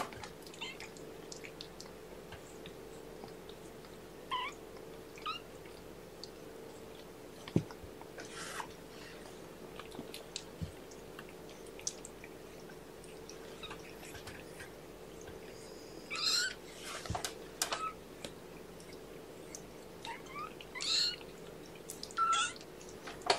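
Three-week-old kittens giving short, high-pitched mews now and then, a few about four seconds in and more in a cluster past the middle, over a steady low hum.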